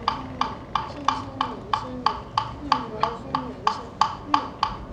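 Buddhist funeral chanting: a wooden fish (muyu) struck steadily about three times a second, under a low voice chanting in a slowly rising and falling line.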